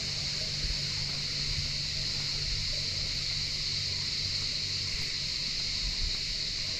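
Steady high-pitched buzzing chorus, typical of cicadas, unbroken throughout, over a low rumble of wind on the microphone.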